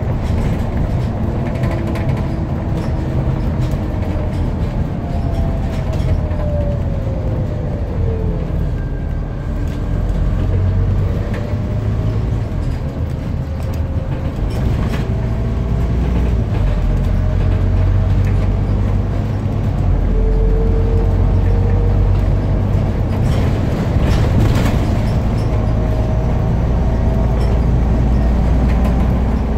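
Scania CN230UB bus's engine and drivetrain heard from inside the passenger saloon, a steady low drone with road noise. A faint whine falls in pitch about a quarter of the way in as the bus slows, and in the second half the engine pulls louder as it accelerates again.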